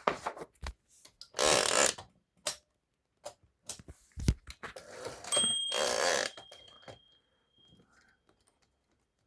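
A sheet of paper being drawn out of a Remington portable typewriter's platen with the paper release lever open: two rustling slides of paper, with scattered clicks from the machine's levers. About five seconds in, a sharp metallic ping rings on for about two seconds.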